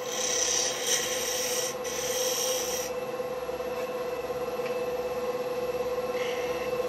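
Wood lathe running with a steady motor hum while a turning tool cuts the spinning black walnut, two hissing cutting passes in the first three seconds. After that comes a quieter stretch and a short, lighter touch of the tool near the end.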